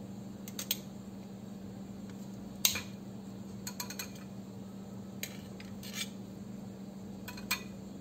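Metal kitchen tongs clinking against a glass bowl and a glass jar while lifting lemon slices: a scattered series of small, sharp clicks, the loudest about two and a half seconds in. A steady low hum runs underneath.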